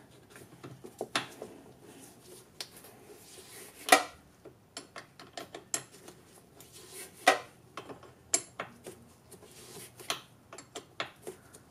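Scattered metallic clicks and clinks of a hand wrench working a nut onto a golf-cart battery terminal bolt to tighten the cable down, with a few sharper clanks about four and seven seconds in.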